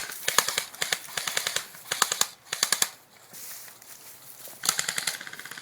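Airsoft guns firing on full auto in several short bursts of rapid clicking, with brief pauses between them.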